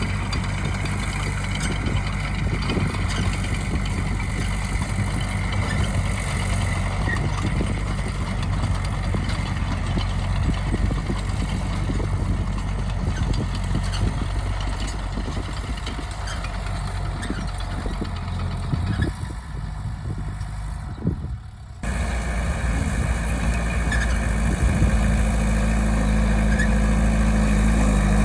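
Bulldozer's diesel engine running steadily, with scattered knocks and clanks. About 22 seconds in the sound cuts abruptly to a louder, steadier engine sound.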